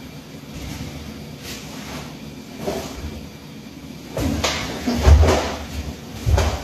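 Bare feet stepping and stamping on a wooden dojo floor during a karate kata, with swishes of the cotton karate uniform as the moves are made. Three heavier thuds come in the last two and a half seconds, the loudest about five seconds in.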